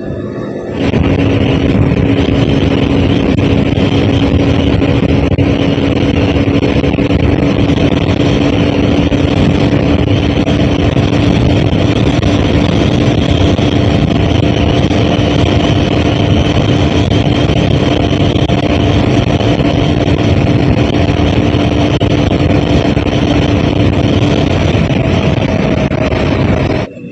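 Motorcycle riding at speed, heard from the rider's seat: dense rushing wind noise on the microphone over a steady engine hum. The sound starts abruptly about a second in and cuts off just before the end.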